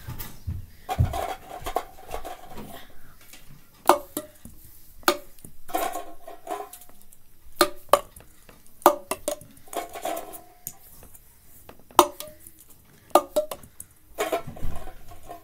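Ping pong balls striking red plastic cups: about eight sharp, light taps at irregular intervals, several with a short hollow ring.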